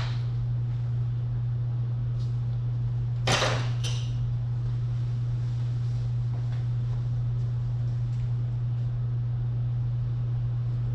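Steady low hum with a few sharp metal clicks and clatters of a socket being fitted onto a small, already-loosened intake manifold bolt, the loudest about three seconds in.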